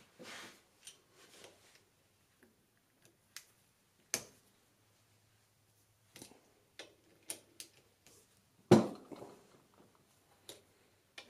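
Socket ratchet wrench snugging down the bolts that hold the two halves of a mini mill's gearbox head together: scattered clicks and small metal taps, with one louder knock about nine seconds in.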